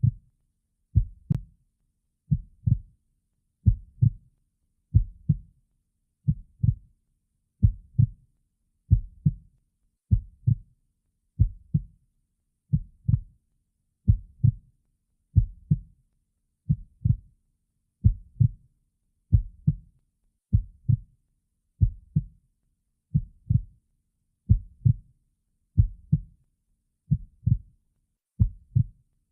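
Human heartbeat, a steady lub-dub: paired low thumps repeating about every 1.3 seconds, around 46 beats a minute.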